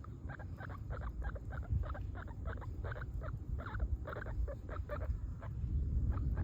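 English guinea pig squeaking in a quick series of short calls, about three or four a second.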